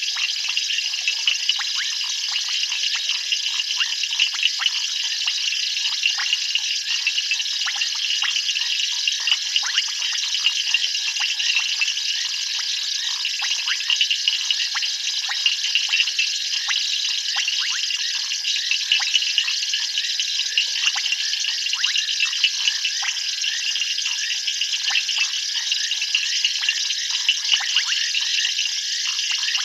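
Night chorus of calling insects in the bush: a dense, steady, high chirping and trilling made of many rapid clicks.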